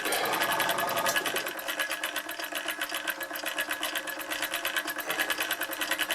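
Bowman M158 single-cylinder model steam engine running on compressed air, turned down near its slowest: a rapid, even ticking chatter of exhaust beats and moving parts.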